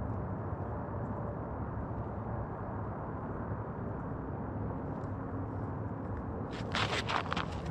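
Steady low wind rumble on the microphone over open ice, with a short burst of crisp scraping and crunching near the end.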